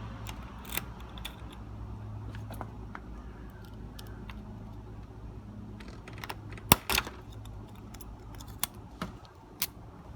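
Keys and metal lock parts being handled, giving scattered sharp clicks and jingles, the loudest click about two-thirds of the way through, over a steady low hum that fades near the end.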